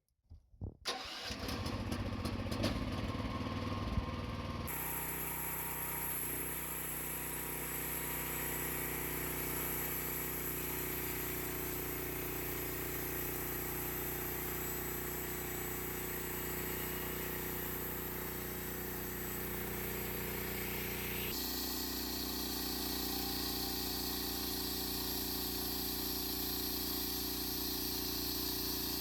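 Small gasoline engine of a portable band sawmill starting up, rough and uneven for its first few seconds, then running steadily; its sound changes abruptly about 21 seconds in.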